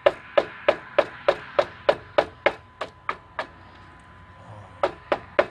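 A run of sharp, evenly spaced knocks, about three a second, a dozen in a row; after a pause, three more near the end.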